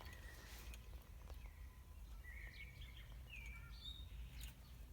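Faint outdoor ambience: a few short bird chirps and calls over a low steady rumble.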